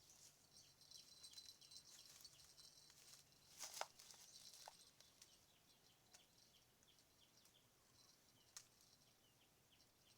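Faint outdoor riverside ambience: a thin high hiss with many small chirps and a few soft clicks, the loudest click a little under four seconds in.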